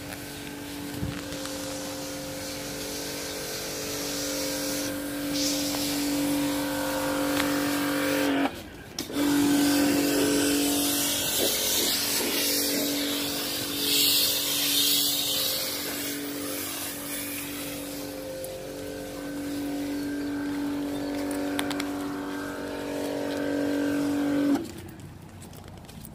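Pressure washer running with a steady motor hum and the hiss of its water jet, cleaning a car's removed floor carpet. It cuts out briefly about eight and a half seconds in, starts again, and stops near the end.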